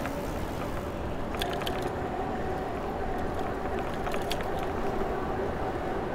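City street traffic with rushing wind-and-road noise from a moving bicycle, a faint steady engine-like hum from about a second in, and short clicks or rattles about one and a half seconds in and again about four seconds in.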